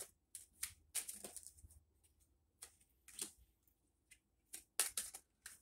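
A Kipper fortune-telling card deck being shuffled and handled: short, irregular soft swishes and flicks of the cards, about a dozen in all.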